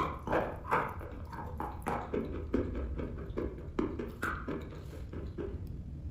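Dry chalk being bitten and chewed close to the microphone: a sharp snap of a bite right at the start, then crisp crunches about twice a second.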